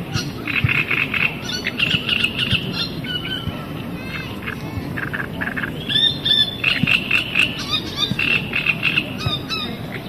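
Frogs croaking and small birds chirping together in a dense chorus of quick, repeated calls, busiest a little past the middle.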